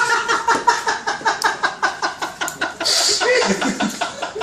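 Men laughing hard, a rapid run of ha-ha-ha pulses about five a second that loosens into scattered chuckles after about three seconds.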